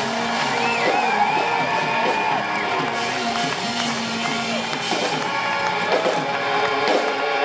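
Live band music played through a PA, with electric guitars and drums.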